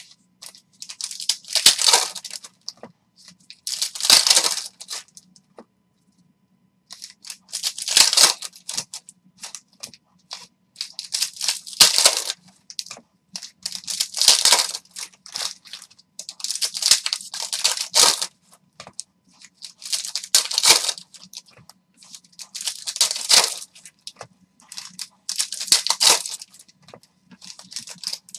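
Foil hockey card pack wrappers being torn open and crinkled by hand. There are about ten separate tearing bursts, one every two to three seconds.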